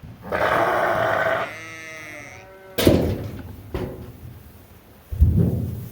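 Sheep bleating: one harsh, loud bleat followed by a quavering bleat. It is followed by a few dull thumps spaced about a second apart.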